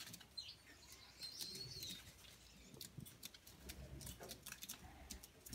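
Faint, high calls of Gouldian finches: a short thin note early on and a longer whistle that rises and falls a little over a second in, among soft scattered ticks.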